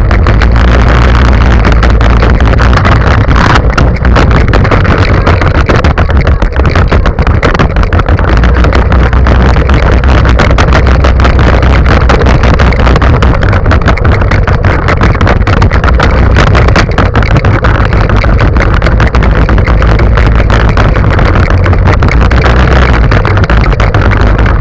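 Go-kart engine running as the kart drives over rough grass, with a constant loud rattle of the kart and its side-mounted camera over the bumps.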